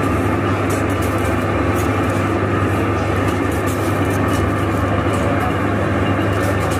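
Steady din of a busy street: indistinct crowd chatter over a constant traffic hum.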